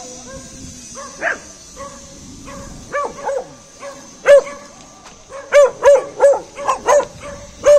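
A dog barking repeatedly in short, sharp barks, about a dozen in all. The loudest comes about four seconds in, followed by a quick run of loud barks over the last three seconds.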